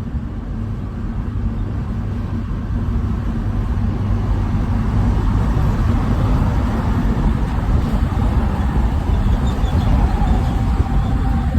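A motor vehicle running close by with a heavy, steady low rumble that grows louder over the first half.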